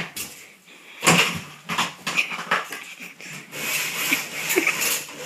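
Fabric roller blind being handled at the window: irregular knocks and rustling, with a sharp knock about a second in and a denser rustling stretch near the end as the blind is pulled partly up.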